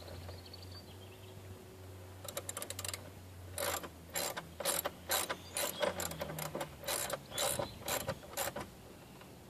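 Hand ratchet clicking as a screw is loosened: a quick run of clicks, then single clicks about three a second that stop near the end.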